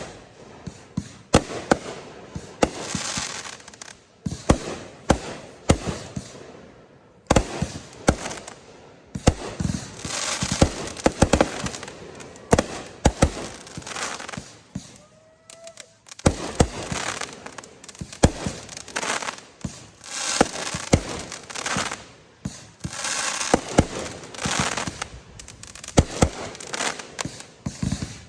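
Consumer fireworks display: 500-gram cakes and 3-inch artillery shells firing and bursting in rapid succession, many sharp reports with crackling in between and a short lull just past halfway.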